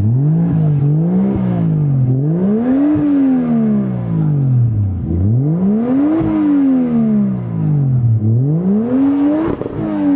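Car engine revving up and down several times, the pitch climbing for a second or two and then sinking back before rising again.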